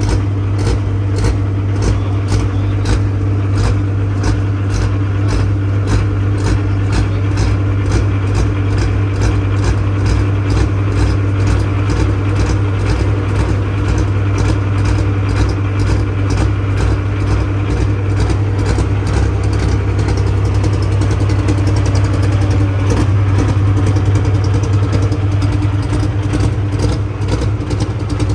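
Semi truck's diesel engine running steadily under way, a constant drone, with a sharp regular ticking about two or three times a second over it.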